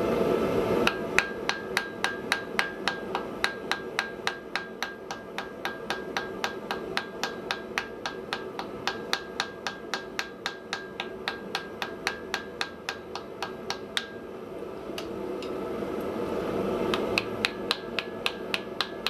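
Hand hammer forging a red-hot wrought iron block on an anvil: a fast, even run of blows, about four a second, with a ringing tone under them. The blows pause for about three seconds near the end while a rushing noise swells, then start again.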